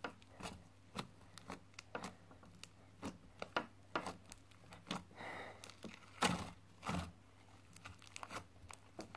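Soft white butter slime being stretched and pressed by hand, giving faint, irregular small crackles and pops, a little louder a few times after the middle.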